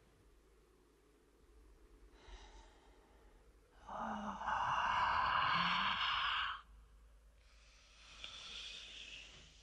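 A man's shout, the film's killing shout: a faint breathy rasp, then a single loud, harsh shout from about four seconds in, lasting nearly three seconds and cutting off abruptly. A weaker rushing sound with a thin whistling tone follows near the end.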